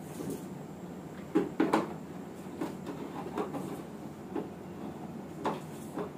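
Scattered knocks and bumps of hard plastic as small children crawl against and push a toddler's plastic play slide, the loudest two close together about a second and a half in.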